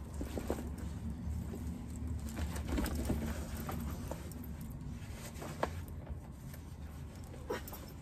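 Heavy leather motorcycle jacket (a Schott Perfecto) rustling as it is pulled on over the shoulders, with a few small sharp clicks from its metal zippers and snaps knocking together, the clearest about five and a half and seven and a half seconds in, over a low steady hum.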